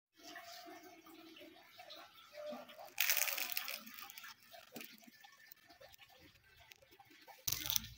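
Crisp deep-fried spring-roll wrapper (kulit lumpia) cracking and crunching as it is broken open by hand around a soft jackfruit filling. There is a loud crackle about three seconds in, lighter crinkling after it, and another loud crackle near the end.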